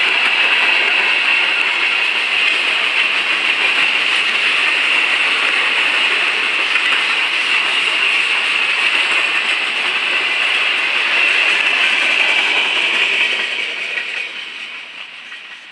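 Freight cars of a Ferromex train rolling past close by: a steady rush of steel wheels on rail. It fades away in the last couple of seconds as the end of the train passes.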